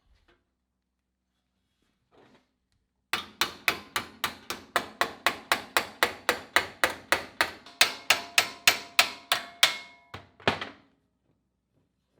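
Hammer striking sheet steel in a rapid, steady series of about four blows a second, the later blows ringing with a metallic tone, then two more blows after a short pause.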